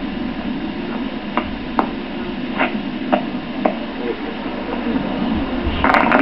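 Drill boots striking the parade-ground tarmac at marching pace: five sharp steps about half a second apart, over a steady low hum. Near the end a louder, dense crackling noise sets in.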